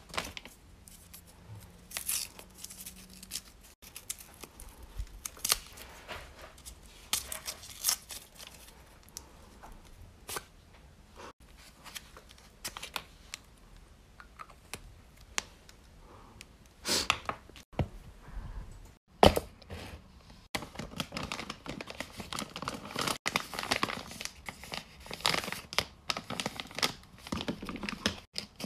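Paper crinkling, rustling and tearing as a handmade paper blind bag and its paper inserts are handled and opened, with scattered small clicks and taps. The rustling grows denser over the last several seconds.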